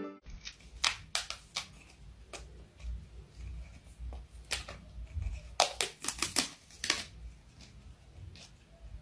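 Irregular sharp clicks and taps, some in quick clusters, over a low rumble.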